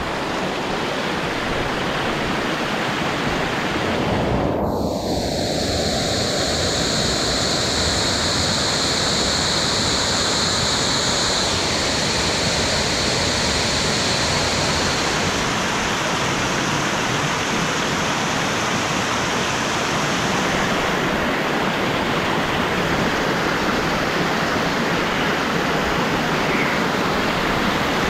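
Waterfall: falling water rushing and splashing over rock in a steady, unbroken rush.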